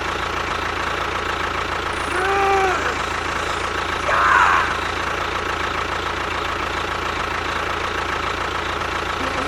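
Small motor of a DIY mini tractor running steadily, a continuous whirring hum. Two brief voice-like exclamations sound over it about two and four seconds in.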